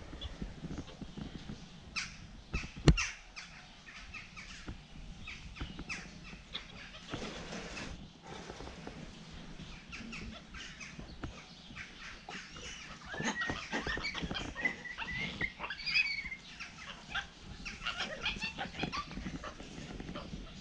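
Tufted capuchin monkeys giving short, high chirps and squeaks, coming thickest in a run about two-thirds of the way through, amid scattered clicks and knocks, with one sharp knock about three seconds in.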